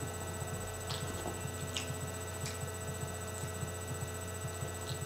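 Steady electrical hum with a fast, even low pulsing under it, and a few faint clicks scattered through.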